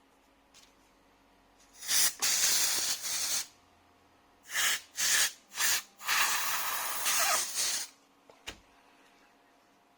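Compressed air blasting dust out of the inside of an opened iMac: a long hissing blast, three short puffs, then another long blast of about two seconds.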